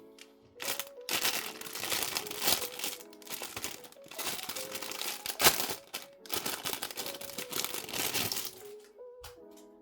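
Packaging being crinkled and handled in bursts, with some tearing, as a package is unwrapped, over soft background music.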